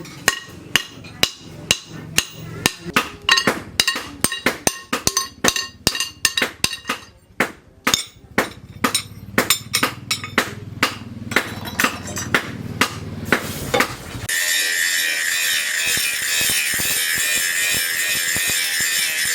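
Hammer blows on an anvil, hand-forging metal: sharp ringing strikes at about two to three a second. About fourteen seconds in they stop and a steady harsh, high-pitched rasping noise takes over.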